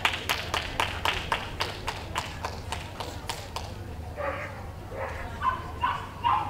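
A run of sharp, even taps, about four a second, stops about three and a half seconds in. Then a dog barks in short yaps.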